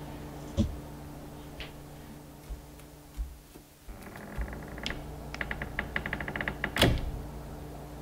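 A low steady hum under scattered soft knocks; in the second half a run of rapid clicks builds to one sharp bang about seven seconds in.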